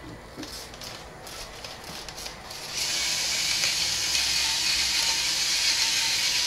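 A battery-powered electric spice grinder running steadily, its motor grinding spice over the soup pot and starting a little under three seconds in. Before it, light rustling and clicks as a paper spice sachet is torn open.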